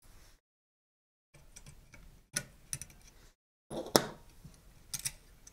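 Small sharp clicks and taps of plastic and metal as the rear circuit board of a Canon EOS 1100D is eased away from the camera body. The loudest click comes about four seconds in, with a quick pair about a second later.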